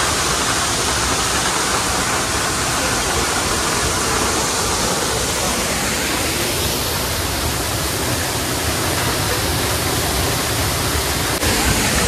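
Steady rushing of a waterfall and its stream, a dense even roar of falling water.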